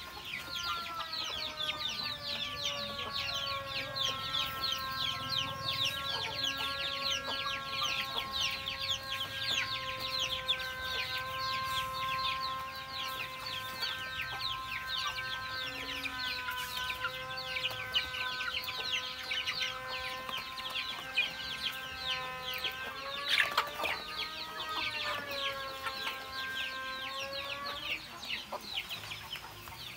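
A flock of young chickens peeping and cheeping constantly while they feed, many short high chirps overlapping. Under them runs a steady humming tone that wavers briefly and stops near the end, with one sharp knock shortly before the wavering.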